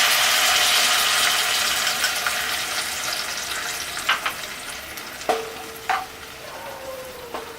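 Tamarind pulp sizzling in hot oil with curry leaves in a flat-bottomed pan, the sizzle steadily dying down as the liquid cools the oil. A few sharp clinks as it is stirred in the second half, one leaving a short ringing tone.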